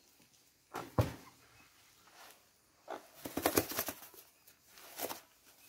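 A single sharp knock about a second in, then a run of short clicks and scuffs a couple of seconds later and another near the end.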